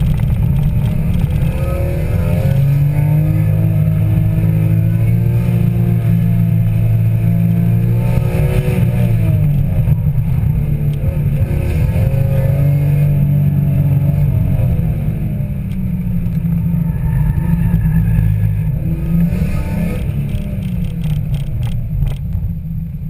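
BMW E46 M3's 3.2-litre straight-six engine, heard from inside the cabin, revving up and falling back again and again as the car is driven hard through an autocross cone course. It eases off over the last few seconds.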